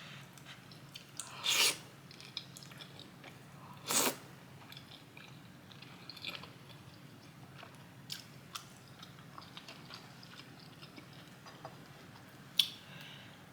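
Close-miked chewing of food with small mouth clicks, and three louder sharp bites or smacks, about a second and a half in, at four seconds, and near the end.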